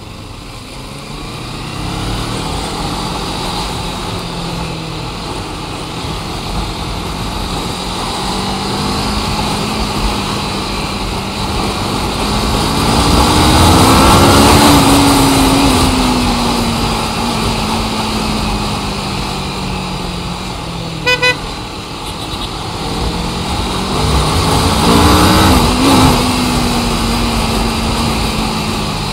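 Road traffic: motor vehicles' engines running, the engine note climbing and falling away twice as heavier vehicles go by. About two-thirds of the way through, a vehicle horn gives two quick toots.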